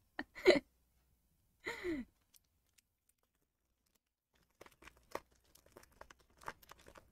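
Clear plastic sleeve of a stationery letter set crinkling and its sticky adhesive flap peeling open: a run of small irregular crackles and ticks in the second half. Earlier there are short vocal sounds, the last a falling sigh about two seconds in.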